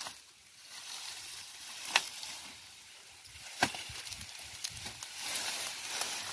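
Sugarcane stalks being cut at the base, three sharp cracks, with dry cane leaves rustling toward the end.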